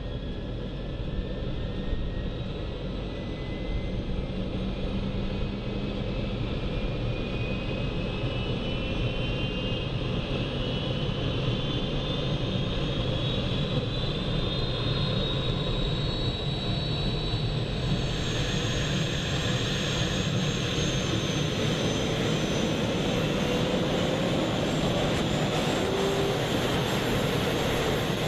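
Bloodhound SSC's Rolls-Royce EJ200 jet engine running: a thin turbine whine rises slowly in pitch over a steady rumble as the engine spools up. After about 18 s it goes on as a steady rush with a higher whine.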